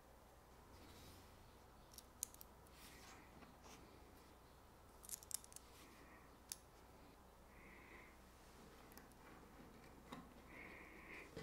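Near silence, broken by a few faint, sharp clicks and taps of small machined steel parts being handled against each other and a wooden bench: one about two seconds in, a quick cluster around five seconds, and one more shortly after.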